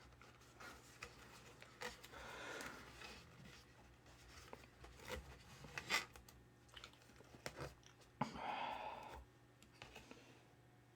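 Faint handling sounds of carpet pieces being pressed and slid into place on the floor of a 1:8 scale model car: rubbing and scratching with scattered small clicks, and a brief rustle about two seconds in and another about eight seconds in.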